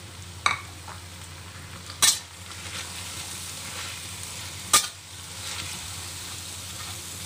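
Vegetables and pork sizzling as they are stir-fried in a stainless-steel wok, stirred with a metal spatula that clanks sharply against the wok three times: about half a second in, at two seconds, and near five seconds.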